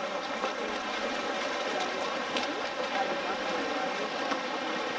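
Steady splashing and churning of water from players swimming and grappling in the pool during a water polo game, with faint voices in the background.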